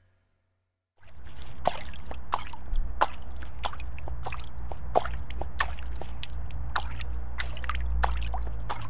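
Water trickling and dripping, with many irregular plinks over a steady low rumble, starting suddenly about a second in.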